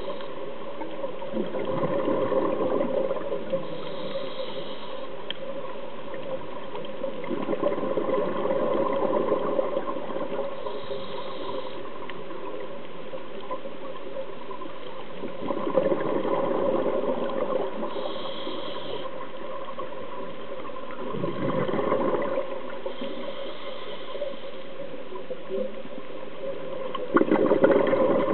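A scuba diver breathing through a regulator underwater. Five gushes of exhaled bubbles come about every six seconds, with a short, faint high hiss of inhalation between them, over a steady underwater hum.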